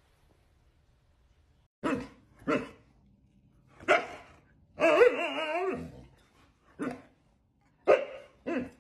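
A husky throwing a tantrum because it wants to play. Starting about two seconds in, it gives a series of short barks and yelps, with one long wavering howl-like whine about five seconds in.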